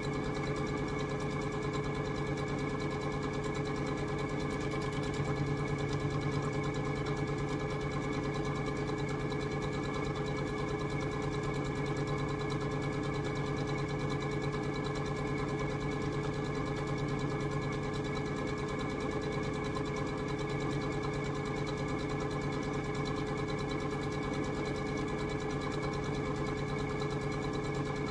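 Electric sewing machine running steadily, stitching a long seam without stopping.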